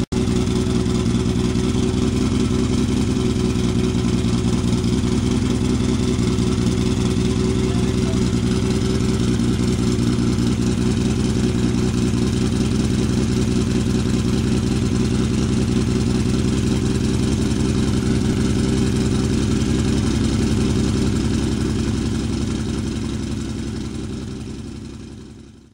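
Turbocharged BMW S38 straight-six engine running at a steady idle. The sound fades out over the last few seconds.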